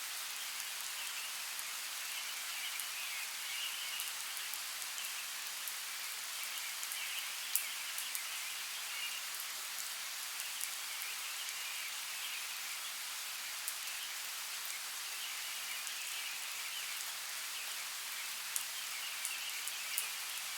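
Steady rain falling in a forest, an even hiss with now and then a sharper drop striking close by. A high, pulsing chorus of small animals comes and goes in patches behind it.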